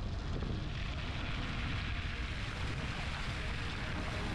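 Car driving at speed: a steady low rumble of engine and road with tyre and wind hiss, the hiss growing stronger about a second in.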